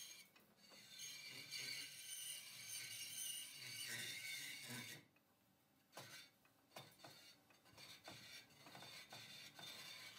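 Faint metallic scraping and rubbing, with a run of sharp clicks in the second half.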